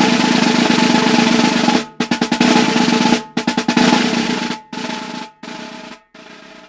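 A series of snare drum rolls. The first is loud and lasts about two seconds. It is followed by several shorter rolls with brief gaps between them, each quieter than the last.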